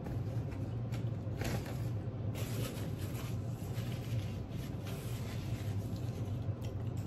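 Steady low hum with a few faint rustles and quiet chewing from someone eating an apple pie.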